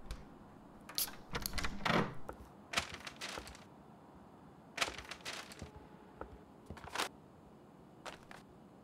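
A few scattered knocks, clicks and rustles of people handling things in a kitchen, with a longer rustle about two seconds in, against quiet room tone.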